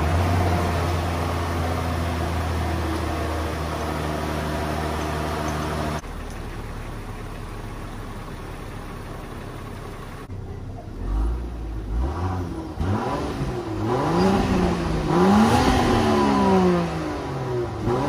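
Stock 2020 Land Rover Defender P400's 3.0-litre turbocharged and supercharged mild-hybrid six-cylinder engine, breathing through its heavily muffled factory exhaust, starting cold and holding a steady fast idle, then dropping to a lower, quieter idle about six seconds in. In the last few seconds the engine is revved several times, each rev rising and falling in pitch.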